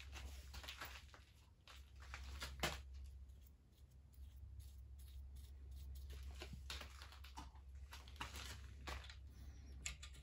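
Faint, scattered small clicks and scrapes of metal hand-tool handling as a tap is unscrewed from a welded-nut tapping guide and cutting fluid is applied, over a steady low hum.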